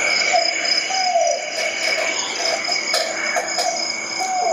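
A recorded mother owl's call played from a phone speaker: a steady high hiss with short falling notes about once a second.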